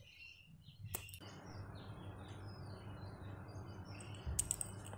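A steady low hum with faint, scattered bird chirps in the background. There is a click about a second in, and a brief low thump with a couple of clicks near the end.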